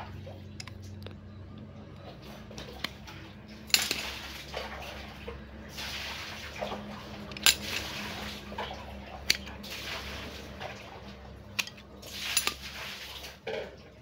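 Dry root stump being trimmed with steel bonsai cutters and handled: several sharp snaps and clicks, spread out from about four seconds in, between stretches of scraping and rustling of bark and wood.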